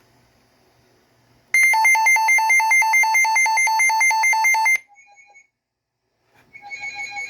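A WR321 weather radio sounds its siren test: a loud electronic alarm that switches rapidly back and forth between a low beep and a high beep. It starts about a second and a half in, runs for about three seconds and cuts off. A quieter burst of the same beeping comes near the end.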